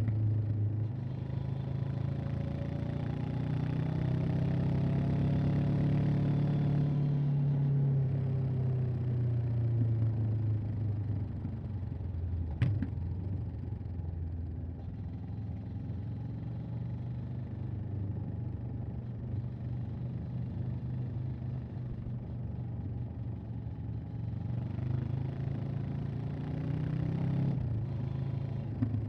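Honda CB500X parallel-twin engine and exhaust pulling through the revs while riding, then easing off. A single sharp click comes about halfway through. The engine then runs steadier at lower revs and builds again near the end.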